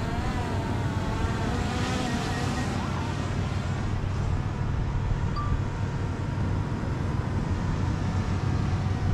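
Small quadcopter drone's propellers whining, the pitch wavering as it climbs, then fading after about three seconds as it flies away. Under it runs a steady low rumble of wind and surf.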